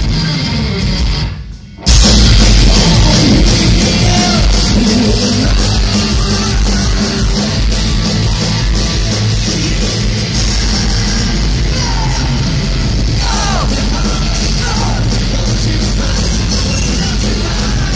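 Heavy metal band playing live at full volume, heard from within the crowd: guitars, bass and drums with a lead singer's voice. About a second and a half in, the band cuts out briefly, then comes crashing back in together.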